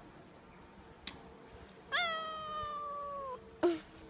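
A cat meowing: one long, drawn-out meow that falls slightly in pitch, starting about two seconds in and lasting about a second and a half, with a short call near the end. A sharp click comes about a second in.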